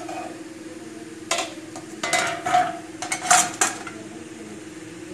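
A metal spoon clinking against a cooking pot several times over about two and a half seconds, starting about a second in, over a steady low hum.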